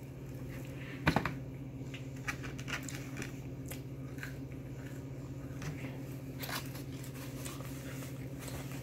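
A person biting and chewing fried chicken wings close to the microphone: scattered small clicks and crunches, with one louder knock about a second in, over a steady low hum.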